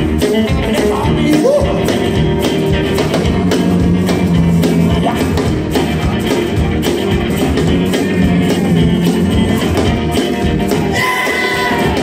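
Live rockabilly band playing with a steady beat: upright double bass, acoustic guitar and drums.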